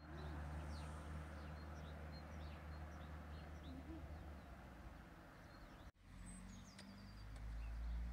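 Small birds chirping over a faint, steady low hum of road traffic. After a brief break about six seconds in, a vehicle's low rumble swells near the end.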